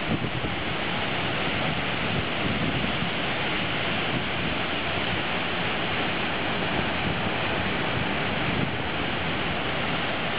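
Large waterfall in heavy flood flow pouring over a rock ledge into a gorge: a steady, loud rushing of falling water.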